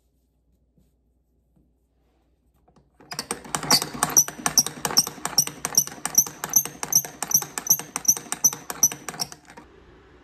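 Hand-cranked cavatelli maker being turned, its wooden rollers and gears clicking about three times a second. The cranking starts about three seconds in and stops abruptly near the end.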